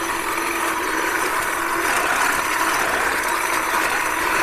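Black & Decker electric hedge trimmer running steadily with a motor whine as it cuts back raspberry canes.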